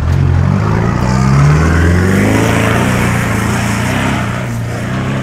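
Mitsubishi Pajero accelerating away along a dirt track: the engine note rises for about the first second and a half, then holds steady, with tyre noise on the dirt that fades as it pulls away.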